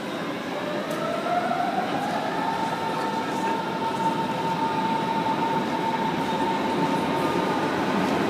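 Electric commuter train on the platform track, a whine rising in pitch over about two seconds and then holding steady, over the steady rumble of the station hall.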